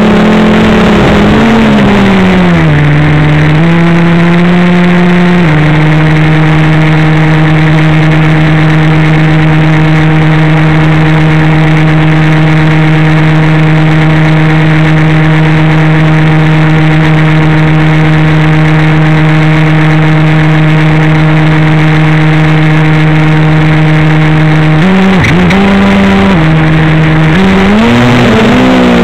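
Blade 350 QX3 quadcopter's motors and propellers humming loudly close to its onboard camera while it sits on the ground. The pitch drops about two seconds in, holds one steady tone for most of the time, then wavers up and down and rises near the end as the throttle is worked.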